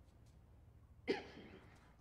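A man's sharp, voiced breath about a second in, a short gasp that fades over half a second, over a faint low hum.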